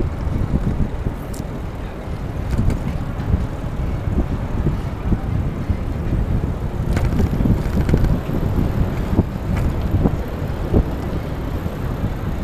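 Low, gusting wind noise on a GoPro's microphone as a bicycle rides along a city street, over steady traffic noise from passing cars and trucks.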